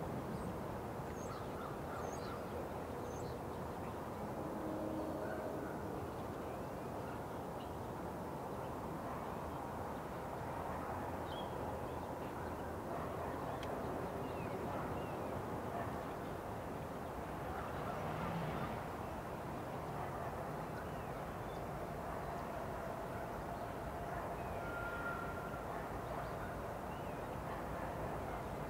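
Steady low rumble of road traffic crossing the tracks and distant diesel locomotives approaching, with a few faint bird calls.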